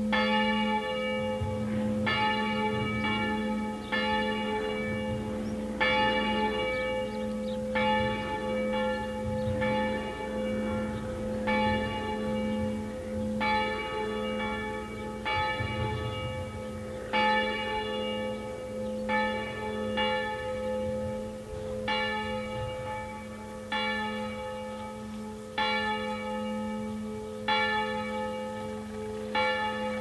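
A church bell being rung, its clapper striking about once a second, each stroke bright and ringing, over a deep hum that sounds on without a break.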